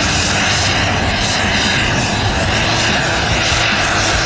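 Miniature jet turbine engine of a radio-controlled model jet, running in flight with a steady, loud rushing roar.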